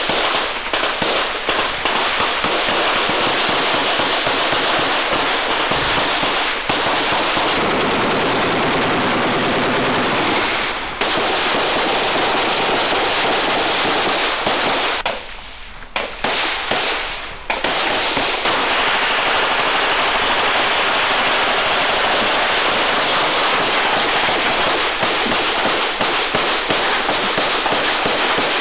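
Heavy, continuous automatic gunfire in a firefight: rapid shots from automatic weapons, close together and overlapping, with a short lull about halfway through.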